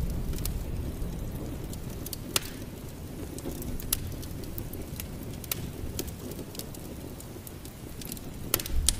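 Log fire crackling, with sharp pops about once a second over a steady low rumble of rain.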